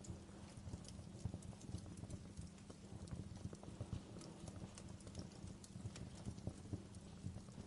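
Wood fire crackling, with irregular pops and snaps over a low rumble of burning.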